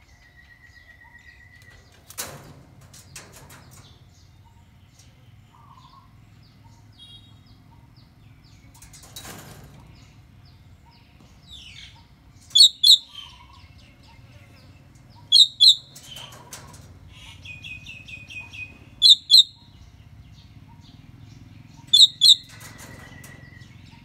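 Common hill myna giving loud, shrill double calls: four two-note calls, about three seconds apart, in the second half.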